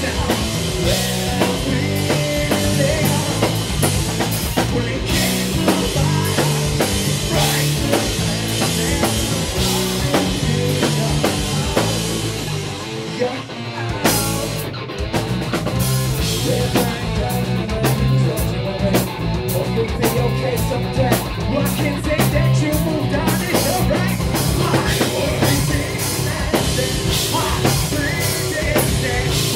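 Live rock band playing loud, with a drum kit driving it throughout. About halfway through the band thins out briefly, then the full band comes back in.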